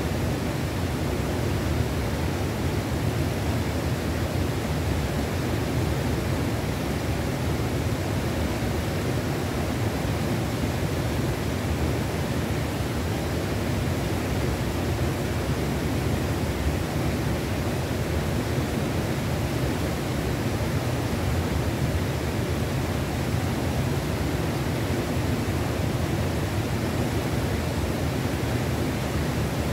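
Tellico River water rushing, a steady unbroken rush with no rise or fall.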